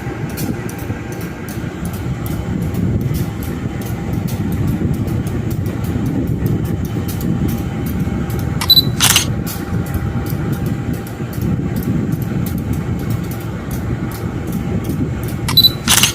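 A train running with a steady low rumble and rapid, even clicking. Two short, sharp hissing bursts come about nine seconds in and again near the end.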